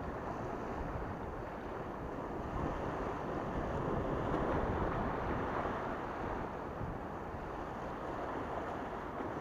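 Sea waves washing and splashing against breakwater rocks, mixed with wind buffeting the microphone: a steady rush of noise that swells slightly midway.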